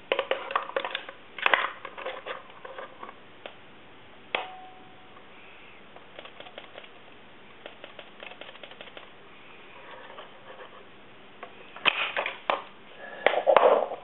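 Small metal clicks and rattles of tools being worked on a Medeco deadbolt cylinder, with locking pliers clamped on it and a thin wire tool in the keyway. Quick bursts of clicking come at the start, a single sharp click with a short ring about four seconds in, light scattered ticks after that, and a louder clatter near the end.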